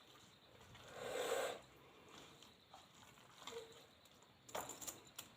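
Faint close-up eating sounds: chewing and mouth noises over a mouthful of dal and rice, with a short soft burst about a second in and a few sharp clicks near the end.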